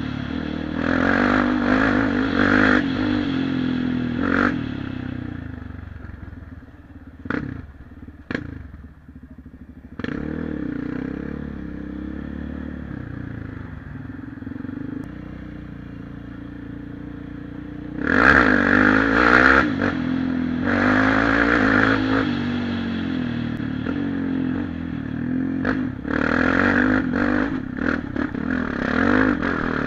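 Single-cylinder four-stroke quad-bike engine under throttle on a rough dirt track, revving up and easing off in turn, with the chassis rattling over stones. A quieter stretch of coasting in the middle is broken by two sharp knocks, then the engine pulls hard again for the second half.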